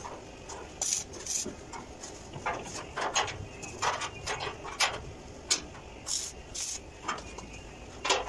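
Footsteps on the steel treads of a spiral staircase, with irregular clunks and scrapes.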